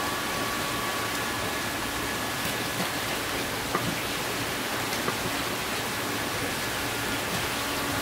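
Steady hiss of running water, with a couple of brief sharp clicks of a knife against a wooden cutting board as a flounder is cut.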